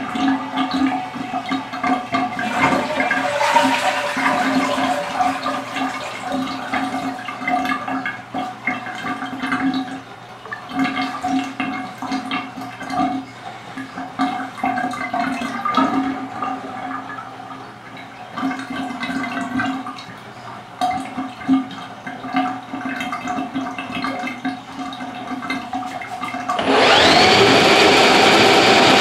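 Black, greasy bathtub water draining down a partly cleared drain around a drain snake cable, gurgling unevenly. About 27 s in, the handheld drain snake's motor starts with a rising whine and runs on steadily.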